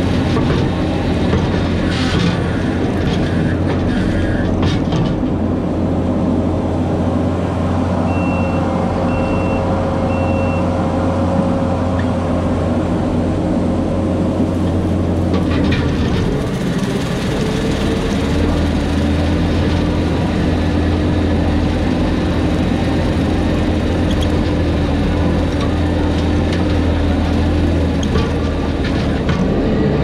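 Skid steer engine and front-mounted Jenkins brush mower running under load while cutting brush and goldenrod, a steady loud drone whose pitch shifts about halfway through as the machine turns. Three short high beeps sound about a second apart near the middle of the first half.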